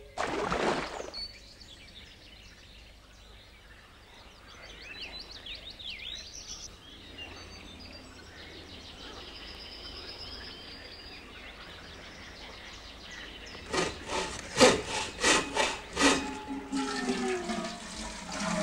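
Cartoon sound effects: faint high bird chirps over a quiet steady hiss, then a quick run of about six sharp knocks in two seconds, followed near the end by a wavering pitched tone.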